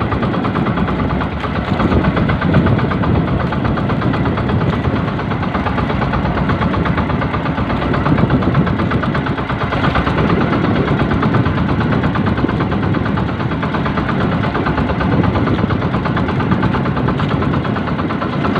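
Outrigger fishing boat's engine running steadily at an even, rapid beat.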